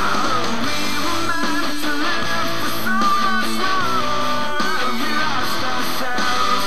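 Background music with guitar: a melodic lead line over a dense, steady mix.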